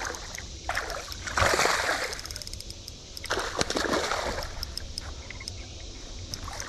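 Water splashing from a hooked smallmouth bass thrashing at the surface during the fight, with two main splashes about a second and a half and three and a half seconds in.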